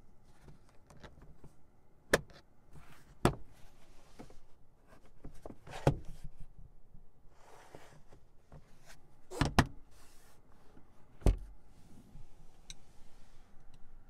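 Sharp plastic clicks and snaps from a 2019 Honda Clarity's sun visor as it is worked by hand, flipped down and swung to the side window. There are about six loud clicks spread out with gaps of a second or more, one of them a quick double near the middle, with a brief rustle between them.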